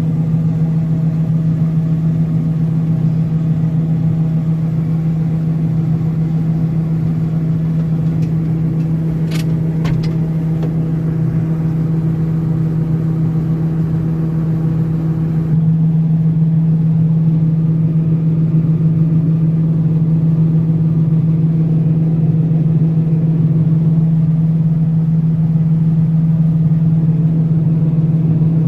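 John Deere 9400 combine's diesel engine running steadily under load while unloading grain, a constant low drone with a strong hum. The level steps up slightly a little over halfway through.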